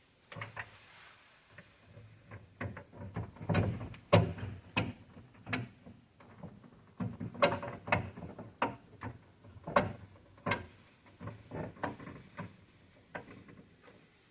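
Irregular clicks and knocks of test-gas equipment being handled at a gas leak detector during its activation test, with a short soft hiss near the start.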